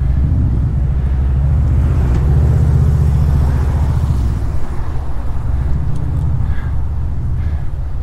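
Low wind rumble buffeting the camera microphone of a road bike moving fast through city traffic, mixed with the noise of the cars around it. It swells about two seconds in and eases off a couple of seconds later.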